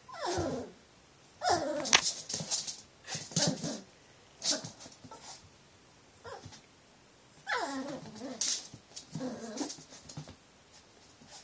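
Nine-week-old Cavalier King Charles Spaniel puppy giving high yelping barks that slide down in pitch, two near the start and two more near the end, at his own reflection in a mirror. Sharp clicks and scuffs come between the calls.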